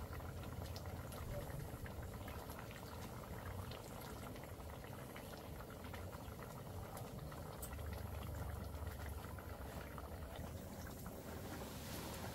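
A pot of food bubbling steadily at a boil over a wood fire, with many small pops.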